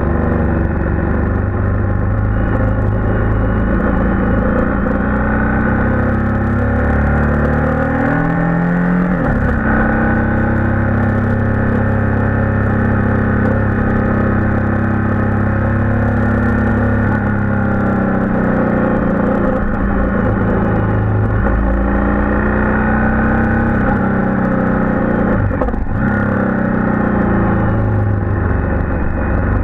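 Background rock music with distorted electric guitar, its chords changing every few seconds at a steady level.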